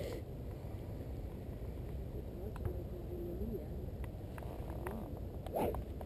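A golf driver striking a ball off the tee near the end, a single sharp crack, over a steady low rumble of wind on the microphone.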